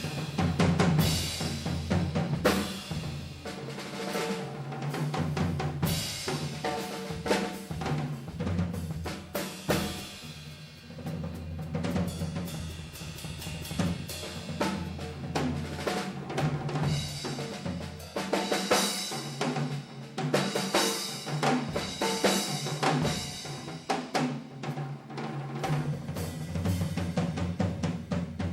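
Percussion ensemble playing drums: a continuous, dense rhythm of many quick drum strokes over pitched low drum tones.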